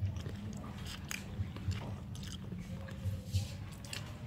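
A person chewing a mouthful of rice and small dried fish close to the microphone: irregular soft thumps with faint clicks.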